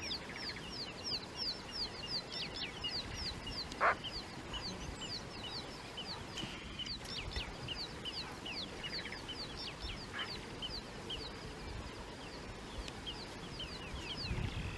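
Birds calling: a steady run of short, high, downward-sliding whistles, several a second, with one brief louder sound about four seconds in.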